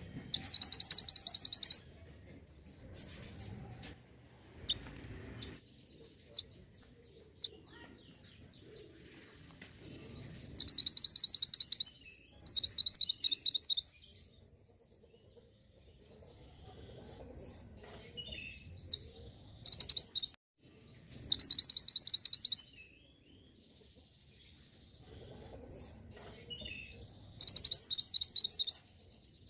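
Mantenan gunung bird calling: loud, high-pitched bursts of rapid repeated notes, each lasting about a second and a half, about six of them with fainter calls in between.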